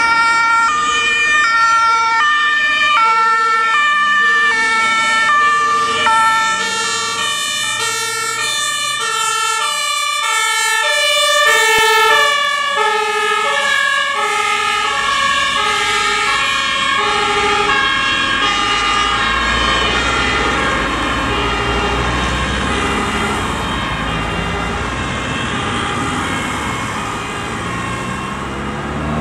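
German two-tone emergency-vehicle sirens (Martinshorn) alternating high and low. Two sirens overlap as the vehicles pass, and their pitch drops slightly as they go by, about twelve seconds in. The sirens then fade into the distance under the rumble of passing road traffic.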